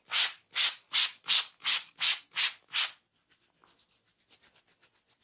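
A barber's hands making eight brisk, evenly paced rubbing strokes, about three a second, then stopping; faint light crackles follow.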